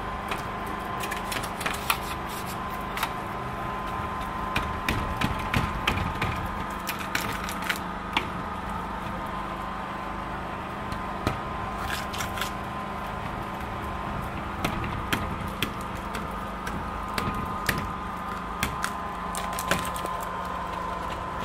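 Blade scraper scraping wet window glass during cleaning, irregular scratchy clicks and scrapes. A steady hum with a thin high tone runs underneath.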